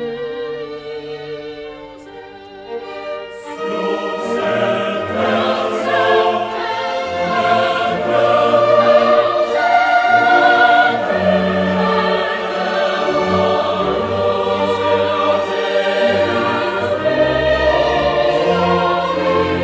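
Background music: choral and orchestral music with sung voices holding long wavering notes, growing fuller and louder about three and a half seconds in.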